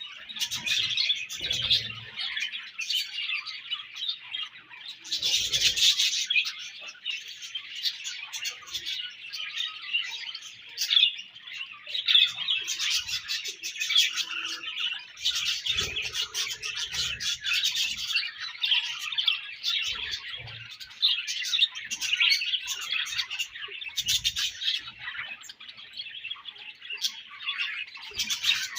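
A colony of budgerigars chirping and chattering, many birds calling over one another without pause, with occasional louder squawks.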